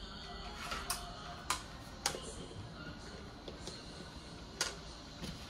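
Four sharp, separate clinks and knocks of kitchenware being handled, the last as the lid of an earthenware crock is set in place.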